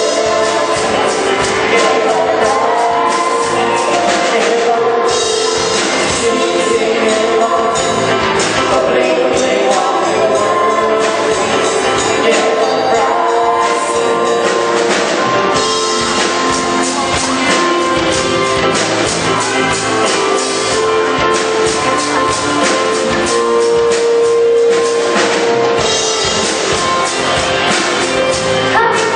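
A vocal group singing a pop medley with drums and band accompaniment.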